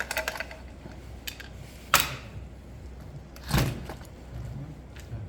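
Light clicks, then two sharp knocks about a second and a half apart, as the chainsaw's bar nuts are undone and the saw's cover and bar are handled.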